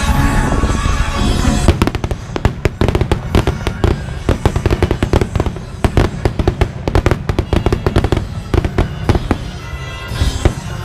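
Rapid volley of aerial firework bursts, many sharp bangs and crackles in quick succession, starting about two seconds in and easing near the end. Music for the show plays underneath and is the main sound at the start.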